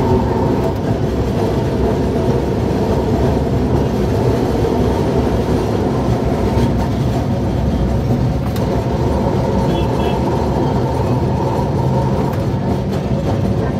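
Tram car running along street track: a steady rumble and rattle of wheels on the rails and the old car body, with a couple of sharp clacks past the middle.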